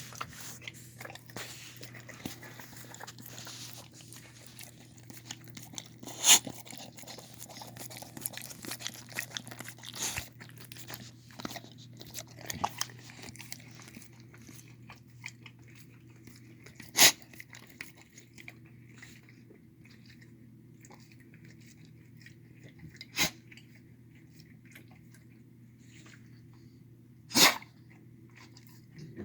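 A pit bull and shar-pei mix dog eating homemade dog food of chicken, lentils, carrots and rice: steady chewing with many small clicks, busy in the first half and thinning out later, and four sharp louder clicks spread through it.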